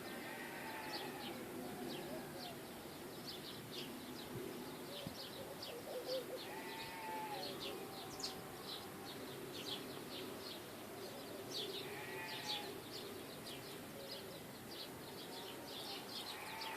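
Many small birds chirping in short, rapid high notes, with a lower call with several harmonics repeating about every five seconds over a steady outdoor background.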